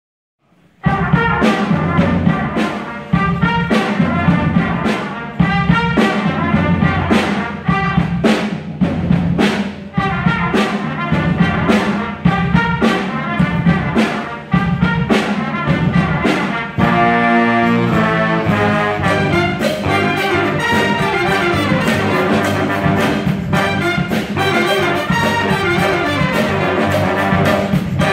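School jazz big band playing, saxophones, trombones and trumpets together over sharp, regular hits of the beat, starting abruptly under a second in. About two-thirds of the way through the band holds a brief chord, then plays on more densely and evenly.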